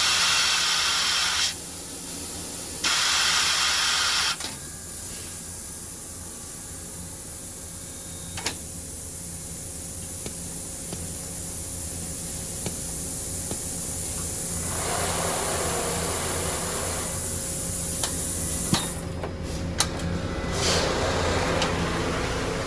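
Compressed air hissing in two loud bursts from the Amada Vipros 357 Queen CNC turret punch press and its MP1225 sheet loader, then the machine's steady hum with a faint steady tone, a few sharp clicks and a swell of hiss in the second half.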